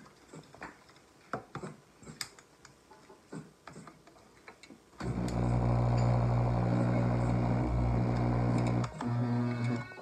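Electric juicer's motor starts about halfway through and runs with a steady hum and a coarse grinding as basil stems are pressed down its feed chute. It cuts out for a moment near the end and runs again briefly. Before it starts there are only a few light knocks of handling the juicer.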